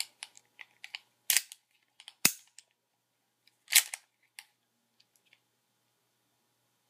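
Sharp mechanical clicks and clacks from handling a Black Ops Colt 1911 airsoft pistol, its parts snapping as it is worked. Small clicks are scattered among three louder clacks about a second apart, the sharpest a little over two seconds in, and it goes quiet after about four seconds.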